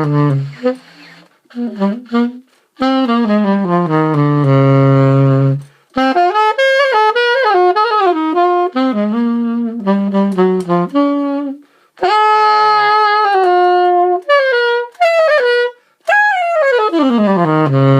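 Gold-plated Martin 'Typewriter' alto saxophone from about 1930, played solo in several phrases with short pauses between them; three of them run down the horn and settle on its lowest notes. Small resonators on its pads give it a mellow tone.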